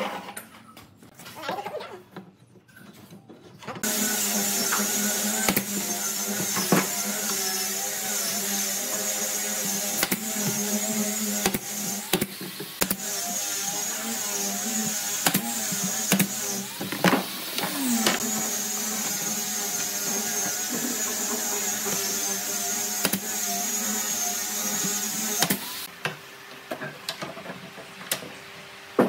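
Wooden strips knocking as they are handled, then an air compressor starts about four seconds in and runs steadily, with sharp nail-gun shots as a pneumatic nailer fastens bent wooden slats to a chair frame. The compressor cuts off near the end, leaving a few knocks.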